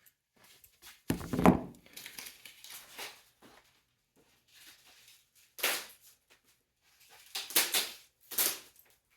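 Handling noises: a sharp knock a little over a second in, then rustling and scraping, with more short bursts of clatter and rustle around six and eight seconds in.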